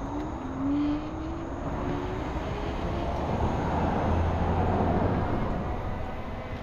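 Steady stream of interstate highway traffic passing, tyre and engine noise of cars and trucks. Early on, a few passing vehicles give short gliding tones, and from about the middle a heavier vehicle goes by with a louder low rumble.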